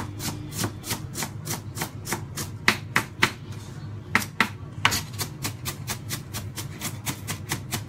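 Kitchen knife mincing onion on a cutting board: rapid, uneven knife strikes, several a second, without a break.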